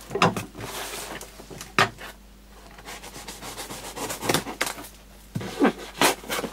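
A small cutting tool slicing through layers of packing tape on a cardboard box, with the cardboard flaps scraping and rustling as they are pulled open; several sharp rips stand out.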